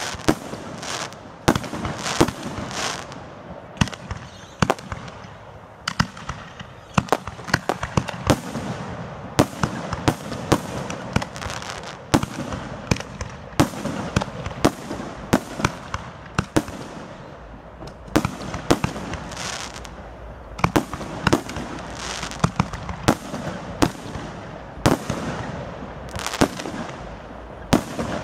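Aerial fireworks display: shells bursting overhead in quick, irregular succession, with sharp bangs often several a second over a continuous noisy crackle.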